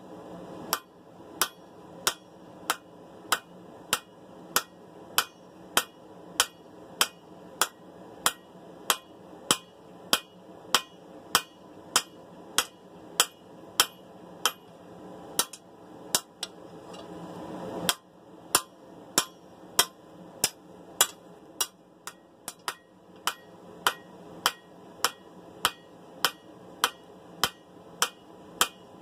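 Blacksmith's hammer forging a sword blade on an anvil: steady, even strikes at about two a second. A little past the middle the strikes pause briefly while a rushing noise swells, then the hammering resumes.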